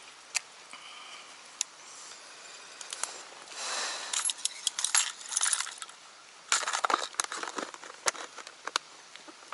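Hard plastic tackle box being handled: lures and lids clatter in rapid runs of sharp clicks and rattles, and the lid is shut and its latches snapped closed near the end.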